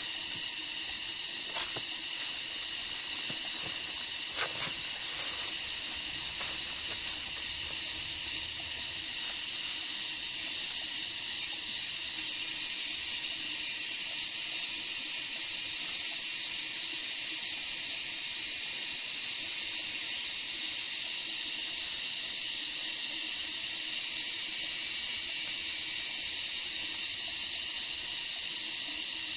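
Steady, high-pitched drone of a rainforest insect chorus, swelling a little partway through, with a couple of faint clicks early on.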